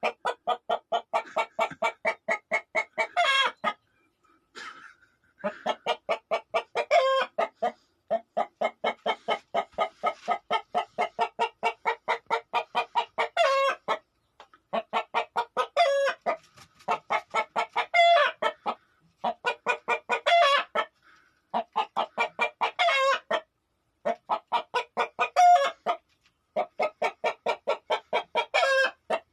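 Chicken clucking in fast runs of short pitched notes, each run ending in one longer drawn-out call, repeated over and over with brief pauses between.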